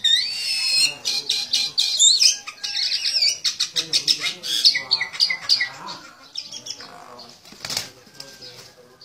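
Myna calling with rapid, gliding whistles and harsh chatter, then a brief flutter of wings near the end as the bird takes off. The calls grow quieter over the last few seconds.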